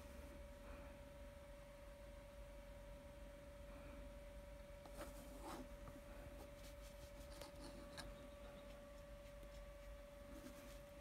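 Near silence: room tone with a faint steady hum on one pitch, and a few faint taps and rustles about five to eight seconds in.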